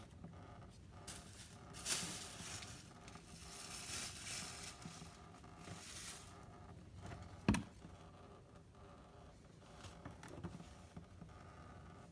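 Faint scraping and rustling of objects being handled for a few seconds, then one sharp click or knock about halfway through and a few softer knocks after it.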